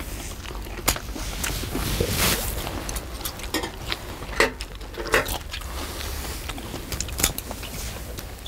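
Metal tongs handling snow crab legs in a shallow pan of seafood stew: sharp metallic clicks a few times, with scraping and rustling of shell against the pan in between.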